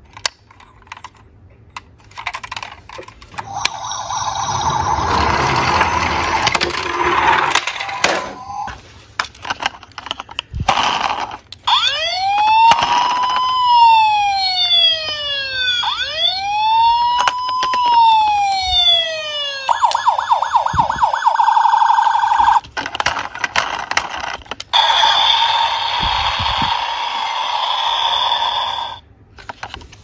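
Battery-powered toy vehicle's electronic siren sound effect: two slow rising-and-falling wails of about four seconds each, then a fast warble for a couple of seconds. Before and after it come handling clicks and stretches of a noisy, hissing rumble.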